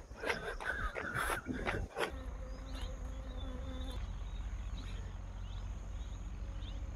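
Insects buzzing with a thin steady high drone over a steady low rumble. The first couple of seconds hold irregular knocks and rustling before the rumble settles in.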